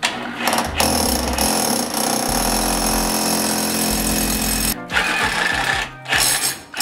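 Electric core drill boring into a brick exterior wall, running steadily under load. It stops briefly about five seconds in, runs again, and pauses once more a second later.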